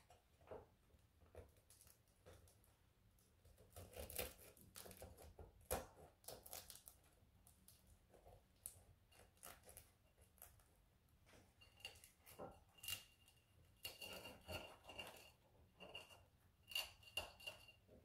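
Fork and butter knife cutting a flaky croiffin on a ceramic plate: crackle of crisp pastry layers with scattered clicks and scrapes of metal cutlery on the plate. In the second half several scrapes carry a thin high squeak of metal on ceramic.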